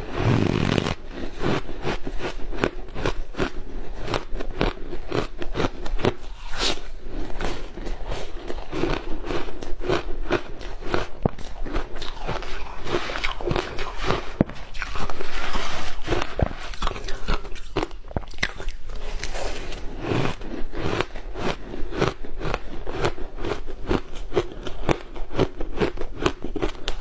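Soft shaved ice being crunched and chewed close to the microphone: a long, irregular run of quick, crisp crunches.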